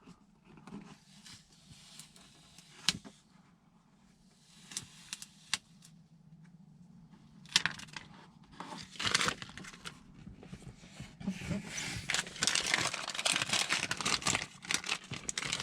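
Vinyl sticker being pressed down and its transfer tape peeled off: scattered small clicks and rustles at first, then a dense crinkling, tearing crackle from about halfway on that grows louder toward the end.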